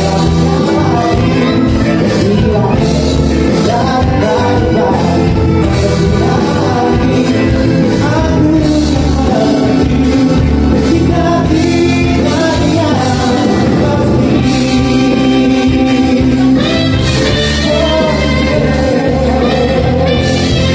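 Live band playing a song with a singer.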